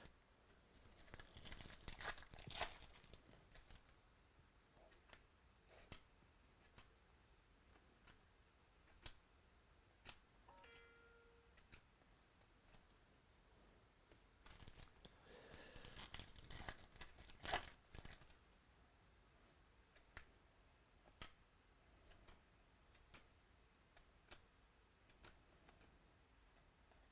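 Foil trading-card pack wrappers being torn open and crinkled, in two bursts, with scattered faint clicks and snaps of cards being handled in between.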